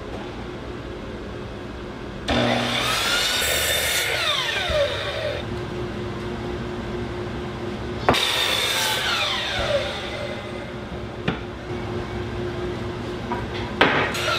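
Miter saw cutting painted 2x4 boards: the blade spins up with a rising whine, bites through the wood and winds down with a falling whine, twice, with a third start just before the end. A steady motor hum runs underneath.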